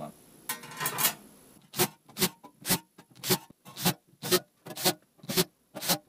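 Thin sheet-metal covers being handled and fitted onto a metal frame: a short scraping rub, then a string of about a dozen sharp clicks and taps roughly half a second apart.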